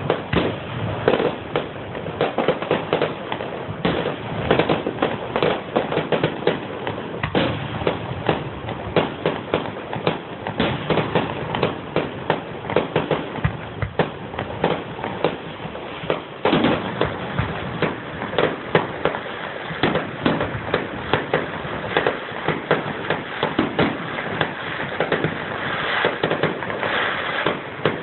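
Fireworks going off in a continuous rapid crackle of pops, many a second and without a break.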